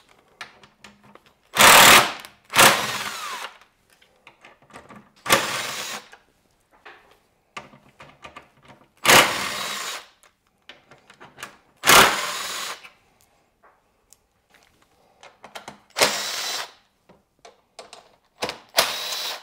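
Cordless power driver spinning bolts out of a motorcycle's frame and tank mounts in seven short runs of about half a second to a second each. Each run starts loud and eases off as the bolt breaks free and backs out. Small clinks of the bit and bolts being handled fall between the runs.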